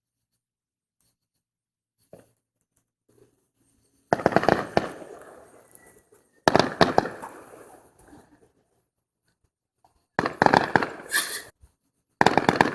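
Fireworks going off in four bursts of rapid crackling pops, starting about four seconds in. Each burst dies away over a second or two.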